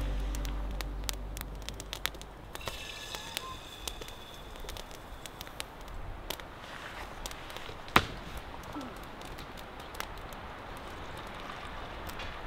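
A cooking fire crackling, with scattered sharp pops and one louder pop about eight seconds in. Background music fades out at the start.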